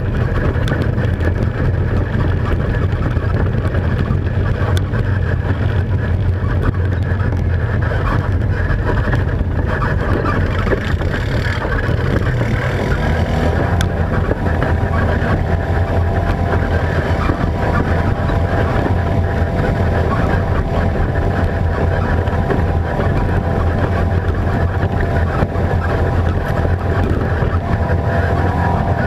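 Racing ATV engine running hard and steadily without a break as the quad is driven at speed over a rough, rocky dirt trail.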